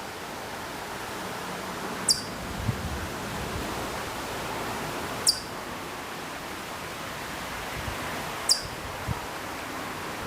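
Hokkaido chipmunk giving a short, high chip call three times, evenly about three seconds apart, each a quick downward sweep, over a steady background hiss.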